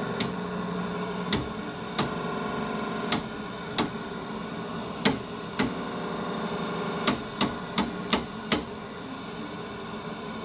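Rotary channel selector on a 1960s Sears tube television clicking through its detents as it is turned, about a dozen sharp clicks at uneven spacing, coming quicker near the end. Under the clicks runs a steady hiss of static from the set, which is tuned to no station.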